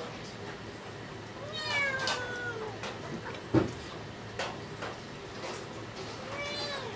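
A domestic cat meowing twice: a long, falling meow about one and a half seconds in and a shorter, rising-then-falling meow near the end. Soft clicks from eating by hand at a plate, and one sharp knock midway.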